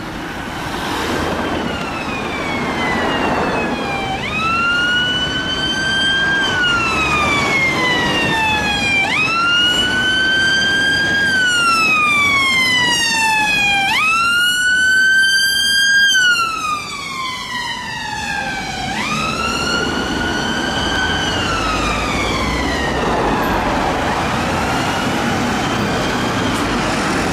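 Ambulance siren on a slow wail, rising and falling in pitch about every five seconds over road traffic noise. It is loudest about two-thirds of the way through, then fades near the end.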